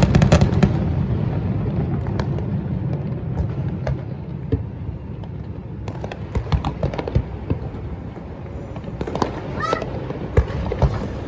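Fireworks bursting over a low rumble: a dense volley of crackling cracks in the first second, then scattered single bangs and pops. Near the end there is a brief honk-like pitched sound.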